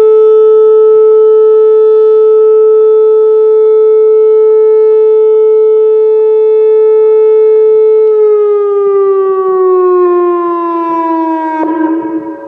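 Whelen WPS 2905 electronic warning siren sounding its steady 435 Hz alert tone, then winding down with a slowly falling pitch from about 8 seconds in. Near the end it drops away suddenly, and other distant Whelen sirens on different pitches are left sounding.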